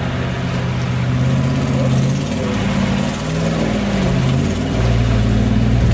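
Range Rover Classic engine working hard as it drives through a deep muddy water hole, its pitch dropping and rising as the throttle is worked. Water sloshes and splashes around the wheels.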